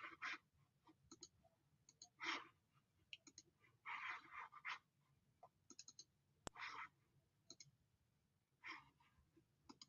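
Near silence with faint, scattered computer mouse and keyboard clicks, some in quick pairs, and a few soft rustles.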